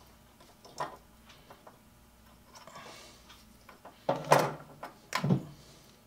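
A hand crimper clicking shut on an insulated wire connector, then hand tools set down on a wooden workbench: two louder knocks about a second apart, near the end.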